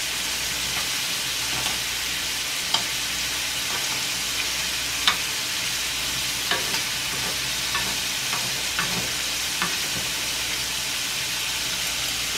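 Shrimp sizzling steadily in melted butter in a nonstick frying pan, with scattered light clicks of metal tongs against the pan as the shrimp are turned.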